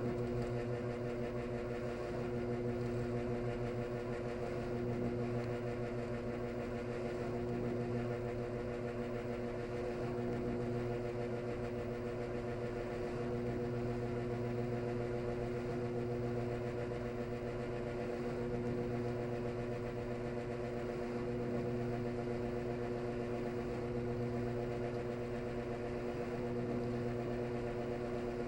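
Washing machine drain snoring: a steady hum that swells and eases gently about every two to three seconds.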